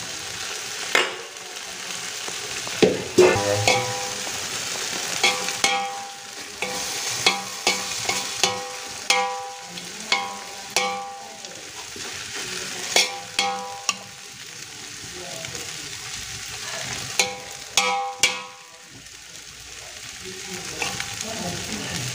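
A steel spoon spreading a layer of cooked rice over chicken gravy in a large aluminium pot, knocking and scraping against the pot with repeated ringing metallic clinks at irregular intervals, over a steady sizzle from the pot.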